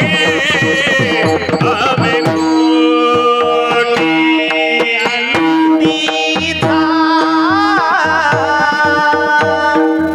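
Marathi kirtan chal: a sung devotional melody over steady held accompanying notes and hand-drum strokes. The singing voice wavers with ornaments near the start and again from about seven seconds, while the drum keeps a steady beat.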